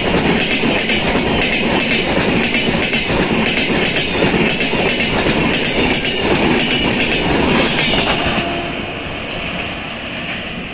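Indian Railways passenger train of LHB coaches passing close at speed, its wheels clicking in a quick, regular clickety-clack over the rail joints. The noise falls away after about eight seconds as the tail of the train goes by.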